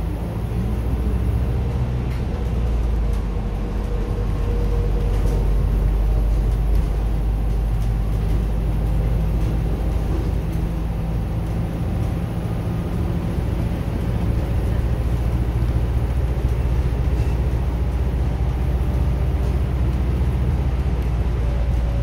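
Steady low rumble of a city bus's engine and road noise, heard from inside the passenger cabin while the bus is moving, with a faint whine that shifts slightly in pitch.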